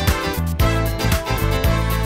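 Background music with a steady beat and bass, running to the end and cutting off.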